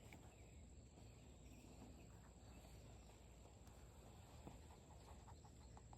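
Near silence: faint outdoor background with a steady high-pitched whine, and a few faint ticks near the end.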